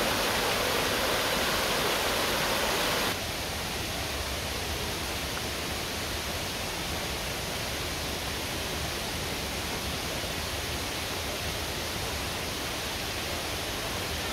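Steady rush of a rocky forest stream running over small cascades. About three seconds in, it gives way suddenly to a quieter steady hiss.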